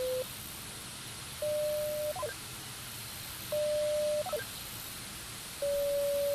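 Electronic beep tones: a steady low tone cuts off just after the start, then three short beeps, each about 0.7 s long at one slightly higher pitch, the first two ending in a brief blip.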